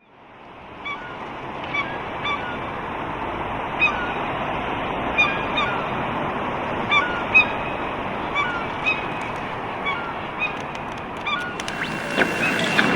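Birds giving short calls, one every half second to second and a half, over a steady background hiss that fades in at the start. A few sharp clicks come near the end.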